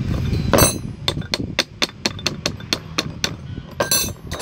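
Hand tools working on a diesel starter motor's housing as it is taken apart: a metal clunk, then a run of about ten light, evenly spaced metallic clicks at about four a second, and a louder clatter near the end.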